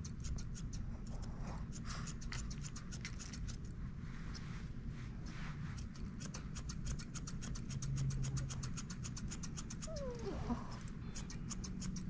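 Grooming shears snipping through a Shih Tzu puppy's head and face hair: a quick run of crisp metallic snips, several a second. About ten seconds in, the puppy gives a short whine.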